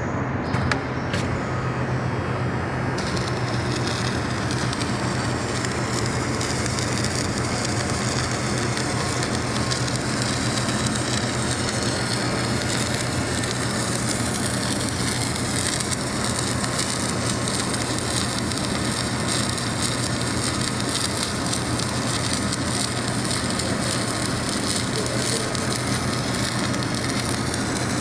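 Submerged arc welding machine running: a steady electrical hum from the welding power source, joined about three seconds in by a continuous crackle and sizzle as the arc burns under the flux and the weld bead is laid.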